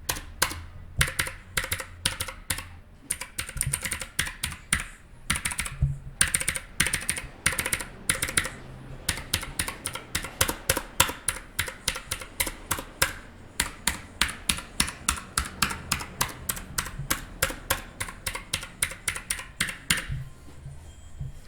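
Key presses on a Motospeed K27 one-handed mechanical keyboard, its mechanical switches clicking: irregular flurries at first, then an even run of several presses a second from about halfway through, stopping shortly before the end.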